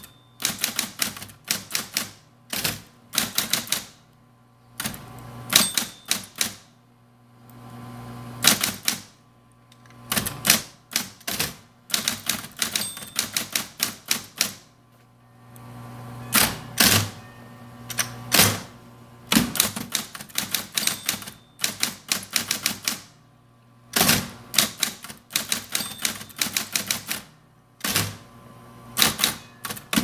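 Smith Corona Coronet Super 12 electric typewriter being typed on: rapid runs of keystrikes in bursts with short pauses between, over the steady hum of its running motor.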